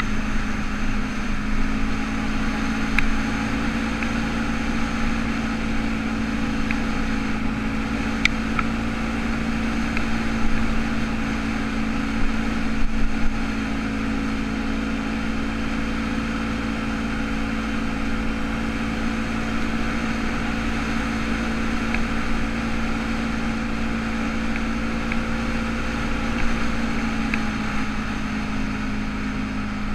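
ATV engine running steadily at cruising speed on a gravel road, its pitch dipping slightly about a second in and again near the end. A few light clicks, loudest around the middle.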